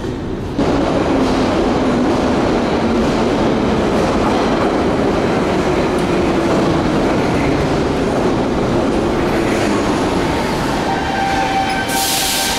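81-717/714 metro train pulling into an underground station: a steady loud rumble of wheels and running gear that sets in suddenly about half a second in. Near the end, high held tones of brake squeal appear, and a short sharp hiss comes as the train stops.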